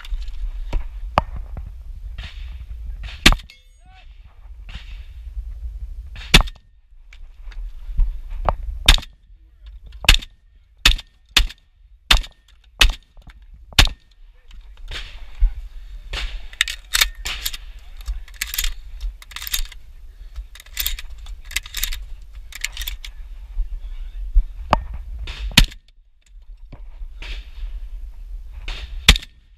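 Shotgun fired from inside a vehicle's cabin: a long string of about two dozen sharp shots at uneven spacing, some close together in quick runs. Between shots there is handling and shell-loading noise.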